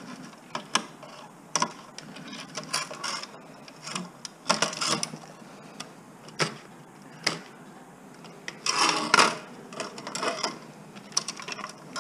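Hand tools and loose metal and plastic parts clicking, snapping and scraping while electronics are taken apart for scrap. The sharp clicks come at irregular intervals, with a longer scraping burst about nine seconds in.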